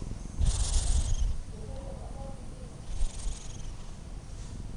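Sleeping calico cat purring, a steady low rumble. Twice, about half a second in and again about three seconds in, comes a short airy hiss with a faint whistle.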